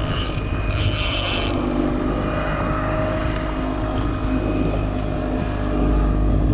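Boat engine running steadily while trolling, a continuous low hum, with a brief higher hiss about half a second in.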